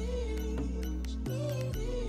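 Background music: a slow melody over held bass notes.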